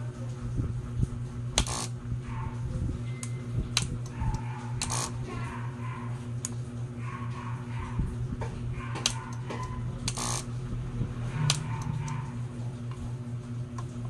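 Nissin TMK-1500VA automatic voltage regulator running with a steady mains hum, with several sharp clicks and a few knocks over it.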